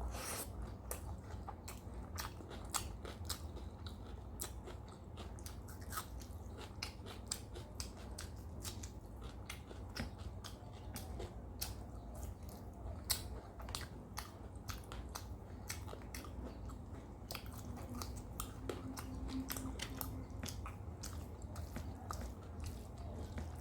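Close-miked eating sounds: steady chewing with many irregular, sharp crunchy clicks and wet mouth smacks, over a steady low hum.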